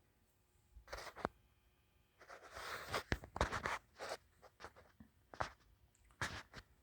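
Handling noise: a scatter of light clicks, knocks and short scraping rustles, busiest in the middle of the stretch, with quiet gaps in between.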